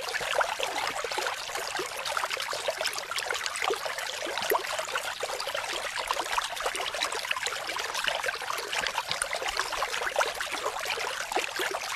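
Water trickling and splashing steadily into a rock-lined pool, a dense patter of small splashes.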